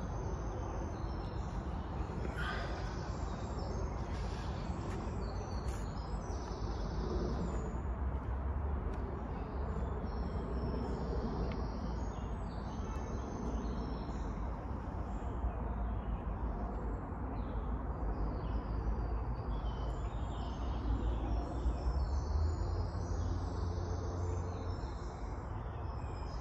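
Woodland ambience: birds chirping and calling over a steady low rumble.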